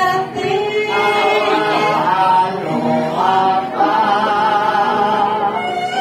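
Javanese Banyumasan gamelan playing with a group of singers chanting in unison on long held, sliding notes.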